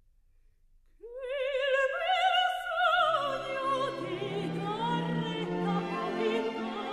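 Operatic singing used as background music: a solo voice with wide vibrato comes in about a second in, joined by an orchestral accompaniment about three seconds in.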